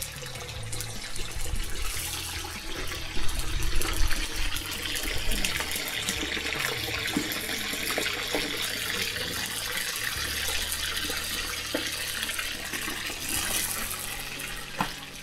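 Pieces of pork entrecôte sizzling as they sear in a kazan of hot sunflower oil: a steady frying hiss, louder from about three seconds in.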